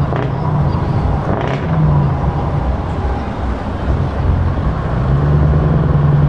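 Scania 164L 580 V8 truck engine pulling away slowly under load, a deep steady drone that swells louder near the end, with other diesel lorries running behind it.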